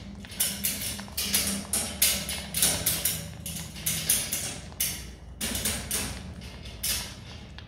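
Himalayan marmot chewing a crisp green vegetable close up, a quick run of wet crunches about three a second that thins out over the last couple of seconds, its mouth foaming with saliva as it chews.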